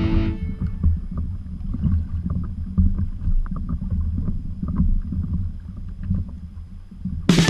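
Choppy sea slapping and sloshing against a plastic kayak hull, with wind buffeting the camera's microphone: an uneven low rumble with scattered faint splashes. Background music cuts in near the end.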